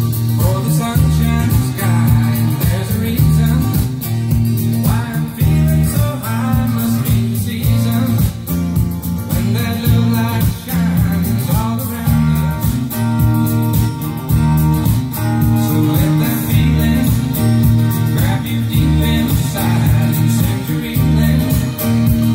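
A song with singing and guitar over a heavy, repeating bass line, played loud through a hi-fi system driven by a Phase Linear 400 solid-state power amplifier and picked up from the room by the camera microphone.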